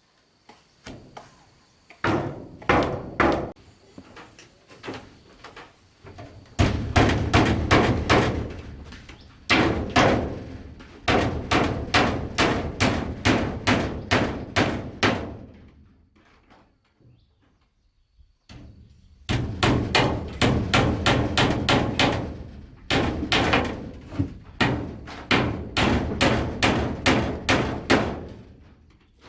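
Hammering on wood: quick runs of sharp strikes, about three a second, broken by short pauses and one longer break about two-thirds of the way through.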